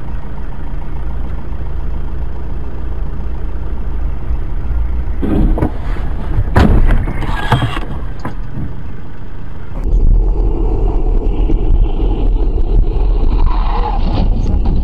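Steady engine and road rumble heard from inside a car on a snowy road, broken a little past the middle by a cluster of loud knocks and clatter. Near the end it switches abruptly to a deeper, louder road rumble.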